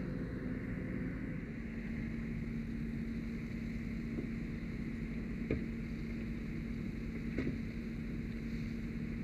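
Fire engine's pump running with a steady hum under a hiss as a hoseline flows foam. Two faint knocks, about five and a half and seven and a half seconds in.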